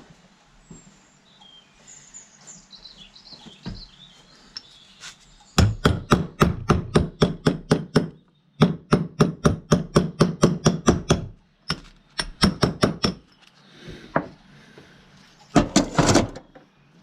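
Rapid hammer taps, about five or six blows a second in four runs of one to three seconds with short pauses, knocking a part home during a rebuild of a David Brown 996 tractor's hydraulic pump. Faint birdsong before the tapping starts.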